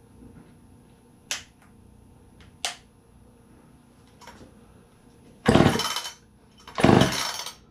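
Recoil starter of a Poulan 306A two-stroke chainsaw pulled twice with the choke on, each pull a loud whir of under a second, and the engine does not catch. Two sharp clicks come before the pulls.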